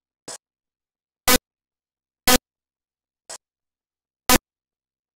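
Five short, sharp ticks at a steady pace of about one a second, the first and fourth softer than the rest, over dead silence.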